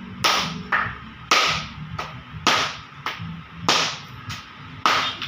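A mallet knocks block ice again and again to break it up: about nine sharp knocks, roughly one every half second to second, some louder than others.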